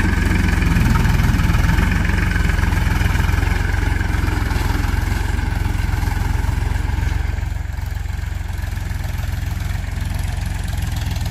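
Powertrac Euro 50 tractor's three-cylinder diesel engine running steadily under load while pulling a cultivator through soil. The sound is a little quieter from about two-thirds of the way through.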